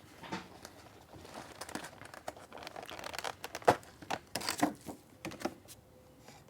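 Plastic packaging crinkling and rustling as a keycap set is handled and unpacked, with irregular sharp clicks and knocks of hard plastic; the loudest click comes a little past halfway.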